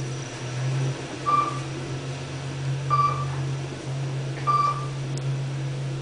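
Kone EcoSpace machine-room-less traction elevator descending, heard from inside the cab: its gearless EcoDisc motor hums steadily. A single-tone floor-passing chime beeps three times, about every second and a half, as floors go by; the chime does not sound that great.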